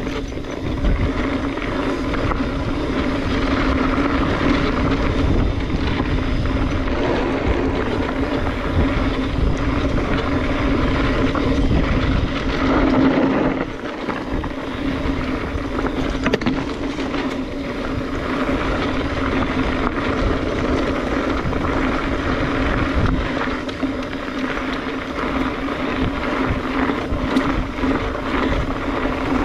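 A 2021 Specialized Stumpjumper EVO Comp 29 mountain bike riding a dirt trail, heard from a chest-mounted camera: steady tyre rumble and a constant hum from the moving bike, with wind on the microphone. The sound dips briefly about halfway through.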